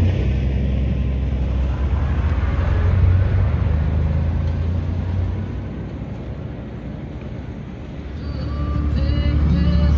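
A vehicle engine running steadily with a deep rumble. It eases off about halfway through and builds again near the end.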